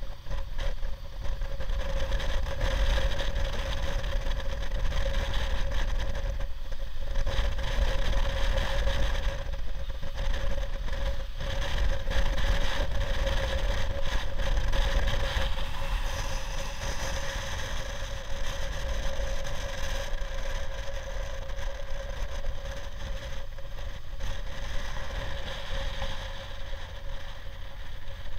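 Motorcycle cruising at steady speed: an even engine drone with a constant hum, under wind rushing over the microphone.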